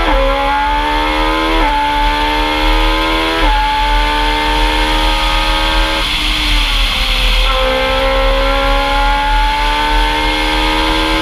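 Talex M2+ hillclimb racing prototype's engine heard onboard at full throttle. It climbs in pitch through the gears, with quick gear changes at the start and about one and a half and three and a half seconds in. Around the middle the pitch sags, then climbs steadily again, over a constant rush of wind.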